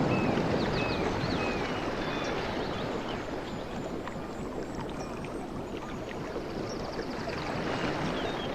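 Sea waves washing in, ebbing over the first few seconds and building again near the end, with small birds chirping and trilling over them in short repeated arching notes.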